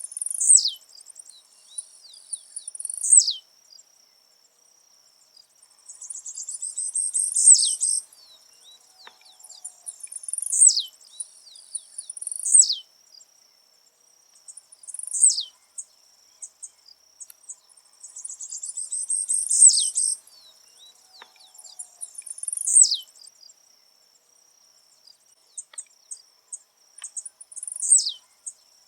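Blue-black grassquit (tiziu) singing over and over, its short high buzzy song ending each time in a sharp downward sweep, about every two to three seconds. A steady high insect trill runs underneath.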